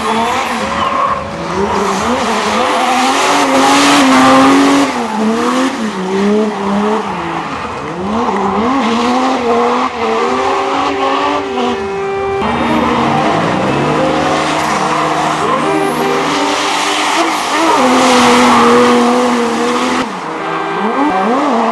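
A Mercedes W123 drift car's 3.0-litre OM606 straight-six turbodiesel, with an Eaton MP90 supercharger and a Holset HX52 turbo, revving hard up and down while its rear tyres squeal and skid through long sideways slides.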